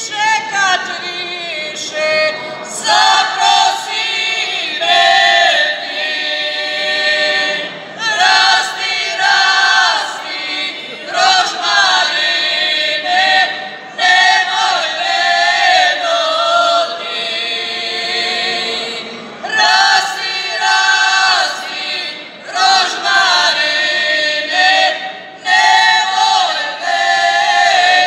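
Women's folk singing group singing a traditional Banija source song a cappella, a lead first voice with the others, in phrases a few seconds long broken by short breaths.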